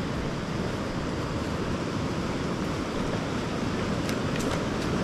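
Whitewater rapids rushing steadily, with a few faint ticks about four seconds in.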